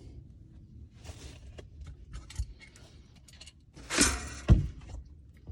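Metal hand tools clinking and rattling: scattered small clicks, then a loud metallic clatter about four seconds in, followed by a dull thump.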